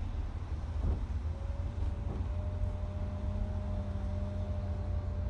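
Mercedes-Benz Travego coach's diesel engine and drivetrain running with a low, steady rumble, heard from inside the cabin as the coach pulls slowly across the forecourt. A steady hum comes in about a second in, joined by a lower hum about two seconds in.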